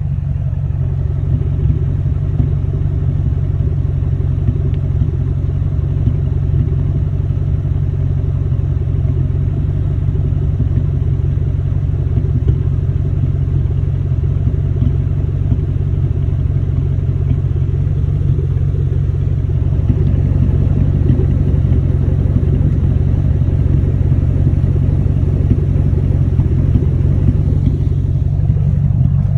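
Ford Mustang GT's 4.6-litre V8 idling steadily with a random misfire, getting a little louder about twenty seconds in.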